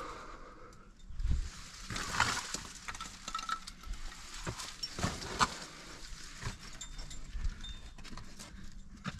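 Climbing gear clinking and rattling on a harness, carabiners and cams knocking together, along with scrapes. It comes as irregular clicks and knocks, loudest about two seconds in and again around five seconds in.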